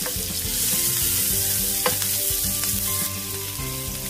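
Chopped onion sizzling in hot chicken oil in a grill pan while being stirred with a wooden spoon, with one sharp knock a little under two seconds in.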